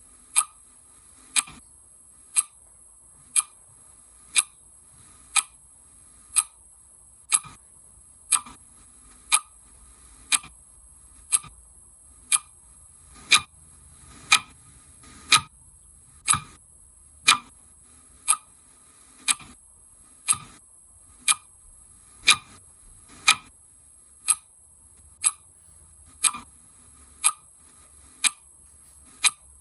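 Clock ticking steadily, one tick about every second.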